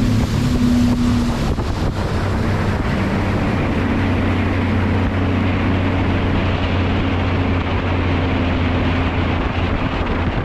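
Boat outboard motor running steadily under way, its steady low drone mixed with rushing wind and water noise.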